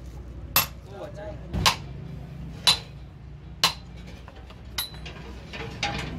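Steel hammer blows driving a king pin bush into a truck steering spindle's bore: sharp metallic strikes with a short ring, about one a second, the last two weaker.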